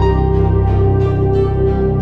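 Background music: slow, ambient new-age style with long held chords and a soft pulse about twice a second.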